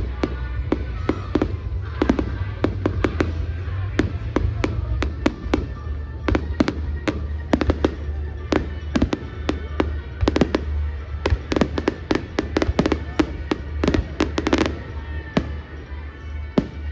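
Firework display: a rapid, continuous run of sharp firework bangs and crackles, several a second, packing into a dense volley near the end before thinning to a few scattered pops.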